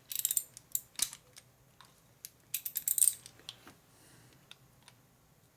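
Metal pliers clicking and scraping on a stuck screw as it is twisted to work it loose: clusters of sharp metallic clicks near the start, about a second in, and again from about two and a half to three seconds in, the last cluster the loudest, then a few faint ticks.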